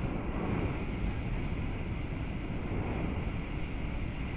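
Hot-air balloon's propane burner firing: a loud, steady rushing noise with no break.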